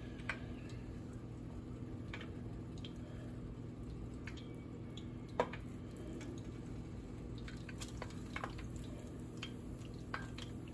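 Breaded cube steak frying in a pot of hot oil: scattered light crackles and pops, with one sharper pop about halfway through, over a steady low hum.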